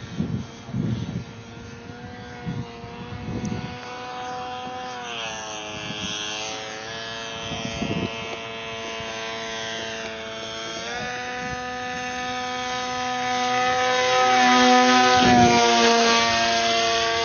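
Electric motor and propeller of a small radio-controlled FPV airplane whining in flight. The pitch shifts with the throttle, dropping about five seconds in and stepping up again around eleven seconds. It grows louder as the plane passes close, loudest around fifteen seconds.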